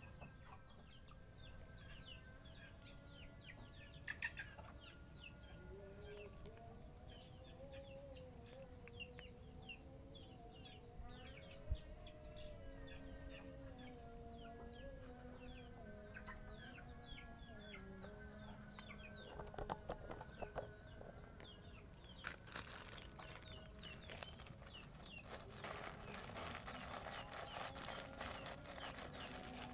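Chickens clucking in the background with faint chirps from small birds. About 22 seconds in, a small plastic bag of dry cat food starts crinkling and rustling as it is held out to a kitten, and this crinkling is the loudest sound near the end.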